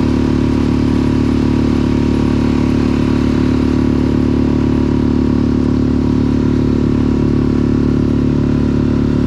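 An engine running at a steady speed: a loud, even drone with no change in pitch.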